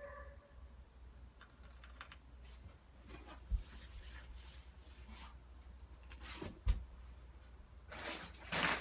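Faint scattered clicks and two dull thumps of tile-setting work, then a louder rustling scrape near the end.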